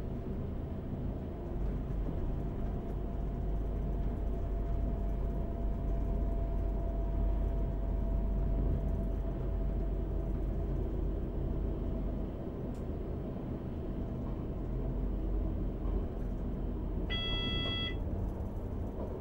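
Siemens Desiro class 642 diesel multiple unit running, heard from the driver's cab: a steady low diesel rumble mixed with wheel and track noise, with a faint whine in the middle. Near the end a short electronic beep sounds for about a second.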